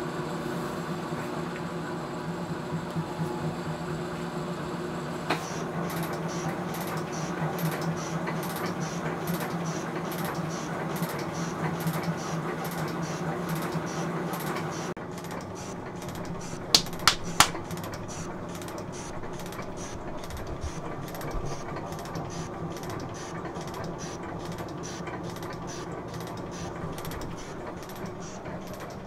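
Sheldon metal shaper running a finishing cut with a round-nosed tool bit: a steady machine hum with a regular clack at each stroke of the ram. About halfway through come three sharp hand claps in quick succession.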